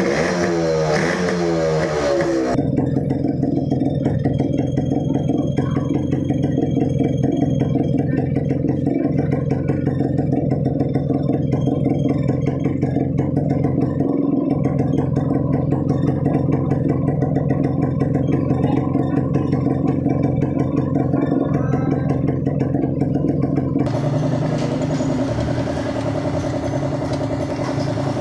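Kawasaki HD3 125's single-cylinder two-stroke engine running on its first start after an overhaul: revved with the pitch swinging up and down for the first couple of seconds, then running at a steady idle, and picking up to a faster, higher-pitched run near the end.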